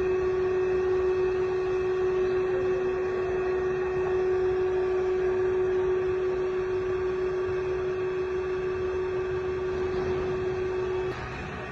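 Amada H-600 horizontal band saw running, a steady machine noise with one strong, even tone. The tone cuts off near the end and the overall noise drops.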